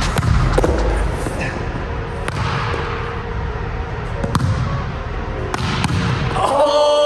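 A volleyball being struck and dug in a gym hall: a series of sharp slaps and thuds of the ball off hands and forearms, with body thumps on the court. Near the end a pitched sound comes in over them.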